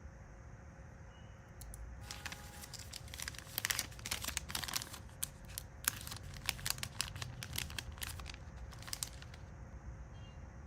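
Packaging crinkling as it is handled: a run of quick, irregular rustles and crackles that starts about two seconds in and stops near the end.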